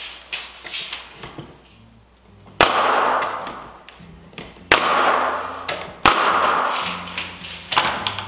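Pneumatic 15-gauge finish nailer firing nails into window sill trim: four sharp cracks a second or two apart, each followed by a short fading hiss.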